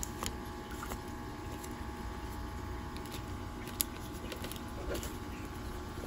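Origami paper being handled and folded by hand: soft rustles and small creasing clicks against the table, with one sharper tap about four seconds in, over a steady low room hum.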